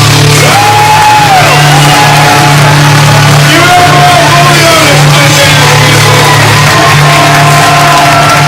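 Loud rock music with a singing voice holding and sliding between notes over a steady bass line.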